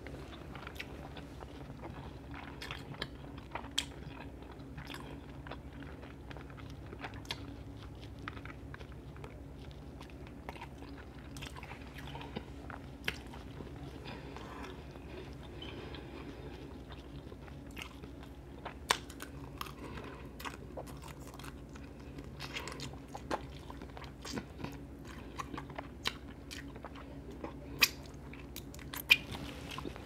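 Close-up eating sounds of a person chewing shrimp and Alfredo pasta: wet chewing and mouth smacks with scattered sharp clicks, a few louder ones near the end, over a low steady hum.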